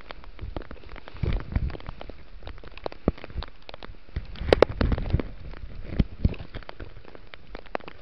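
Rain pattering on the leafy branches of a makeshift shrubbery shelter, with many small close ticks of drops and leaves. Leaves and twigs rustle and knock against the microphone, most around a second in and again around four and a half to five seconds in.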